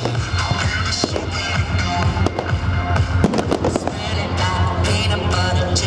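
Fireworks banging and crackling repeatedly over loud music with a heavy bass line.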